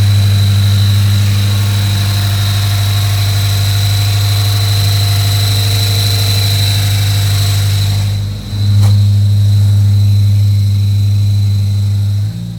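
Scion FR-S flat-four engine idling on a cold start with a steady high-pitched whine from a failing clutch throwout bearing. About eight seconds in there is a click, and the whine fades while the engine keeps running.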